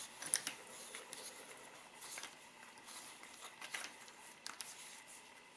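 Faint, irregular clicks and light scraping from hands turning the keyless chuck of a Ryobi cordless drill while swapping its bit.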